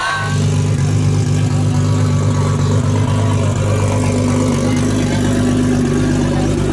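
Car engine idling steadily with a low, even hum that holds at the same pitch without revving.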